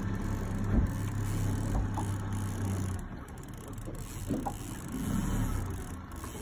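Boat motor running steadily at a low pitch, easing off about three seconds in.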